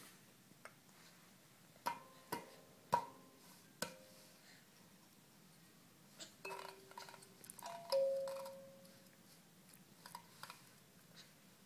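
Wooden box kalimba's metal tines plucked unevenly by a baby's hands. A few scattered notes come in the first seconds, then a cluster of notes near the middle, the loudest ringing out for about a second, then a couple of light taps near the end.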